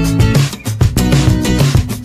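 Background music with plucked guitar and a steady beat.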